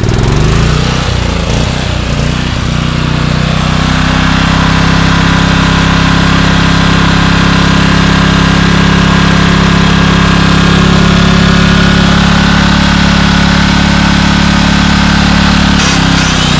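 Generac 4000-watt portable generator's engine, just fired up, wavering for the first few seconds as it settles and then running at a steady speed, with a brief dip near the end.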